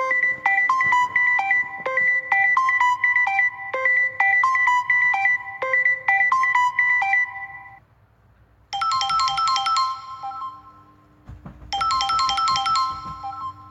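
Samsung Galaxy Note10+ ringtone melodies played as electronic notes: a quick, repeating figure of short notes for about eight seconds. After a brief pause, a higher, brighter phrase is played twice.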